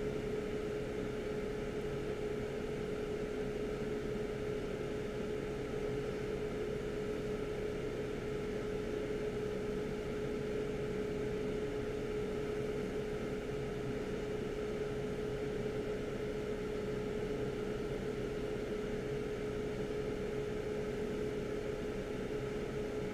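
A small fan motor runs with a steady hum and a constant mid-pitched tone. Any scraping of the paste is not heard above it.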